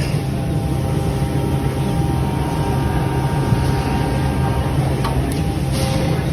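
Altech Rumba CNC machining center running: a steady machine drone with a low hum, with a click about five seconds in and a short hiss near the end.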